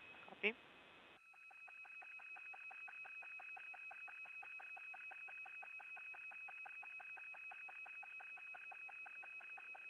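Faint electronic buzz on the mission radio audio loop, pulsing about seven times a second over two steady high tones; it starts about a second in.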